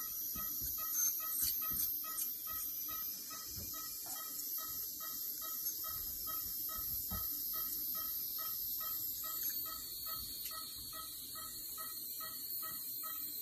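Ultrasonic dental scaler working on a dog's teeth: a steady high-pitched whine, with a rapid, even ticking about three times a second behind it.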